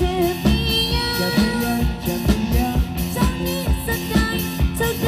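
Music with repeated drum beats under a sustained melody line.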